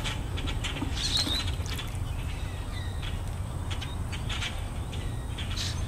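Wild birds calling in short, scattered chirps over a steady low background rumble.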